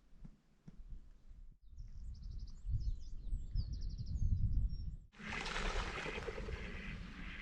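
Low wind rumble on the microphone with a small bird singing high, quickly repeated trills. About five seconds in it gives way to the steady rush of a running stream.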